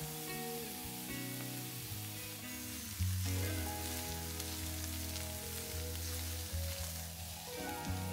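Food sizzling and crackling in hot oil in a frying pan, under background music.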